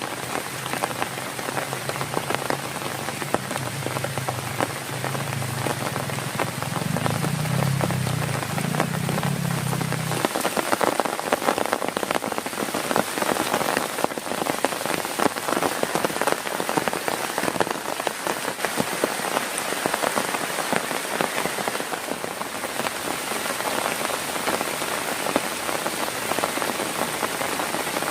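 Heavy rain pattering densely on a tent, a steady wash of countless drop hits. A low rumble swells under it during the first ten seconds or so, then stops.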